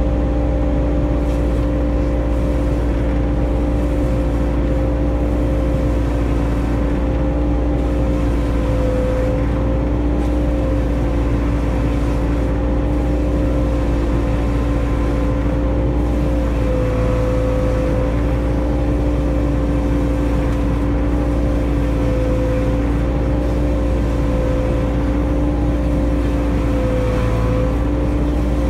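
Takeuchi TB145 mini excavator running steadily under load, driving a hydraulic stump grinder that is grinding down a tree stump, heard from inside the cab. A steady engine drone with a strong hum, its pitch dipping slightly a few times as the load changes.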